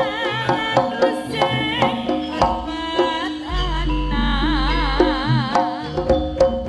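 Javanese jaranan (kuda lumping) gamelan music played live: drums keep a steady beat under a wavering melody line. A deep bass tone swells in about three and a half seconds in and drops away near the end.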